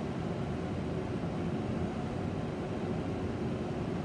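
Steady rushing air noise of a laboratory fume hood's ventilation, with no distinct events.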